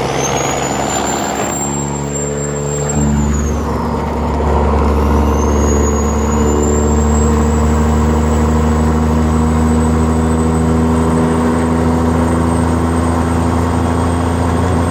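Straight-piped semi truck diesel engine heard from inside the cab, running loud and steady under load; it swells louder and deeper about three seconds in. A high turbo whistle rides over it, dropping away about four seconds in and climbing back up.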